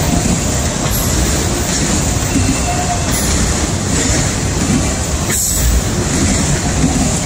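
Autorack freight cars of a CSX train rolling past close by: a loud, steady rumble of steel wheels on rail.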